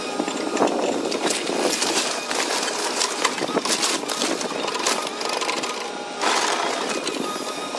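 Bulldozer working through demolition rubble: the engine running under a dense, continuous clatter of cracking and knocking debris.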